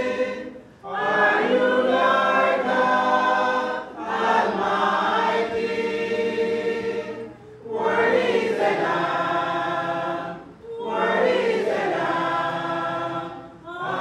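Church choir of men's and women's voices singing a gospel hymn in four long phrases of about three seconds each, with brief breaths between them.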